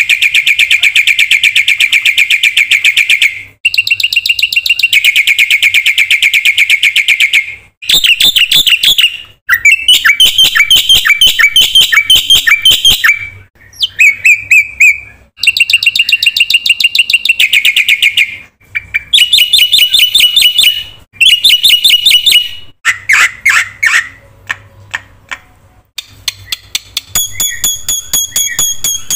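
Black-winged myna (jalak putih) in full, loud song: long phrases of rapid repeated notes, broken by short pauses, with a run of steadier high whistled notes near the end.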